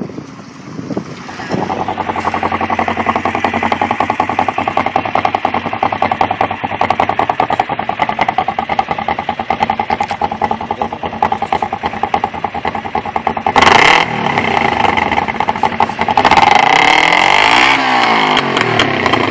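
Kawasaki EX-4 parallel-twin motorcycle engine idling steadily through its twin exhausts. It gives one short sharp rev about two-thirds of the way through, and near the end the revs rise and fall as the throttle is blipped.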